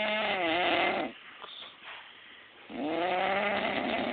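A man snoring: one long, wavering snore ends about a second in, and the next starts a little past halfway.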